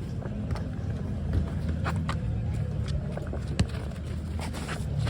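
Steady low rumble with a few brief sharp knocks scattered through it, the clearest about three and a half seconds in.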